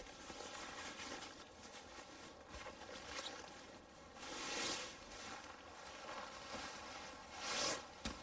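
Sleeping bag's stuff sack rustling as it is handled and pulled off, with two louder swishes, one about halfway through and one near the end.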